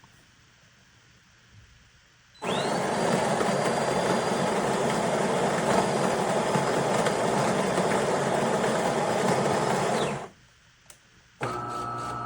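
Built-in burr grinder of a De'Longhi Magnifica Start espresso machine grinding coffee beans for about eight seconds. Its motor whine rises as it spins up, and the grinding cuts off suddenly. About a second later the machine's water pump starts with a steady hum.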